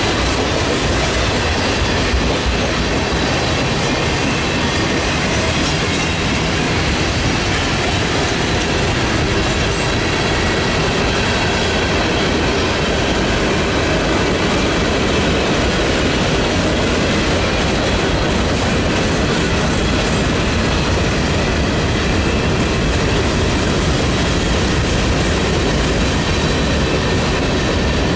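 CSX freight train of tank cars and covered hopper cars rolling steadily past at close range: steel wheels running on the rails and the cars rattling, with no break in the noise.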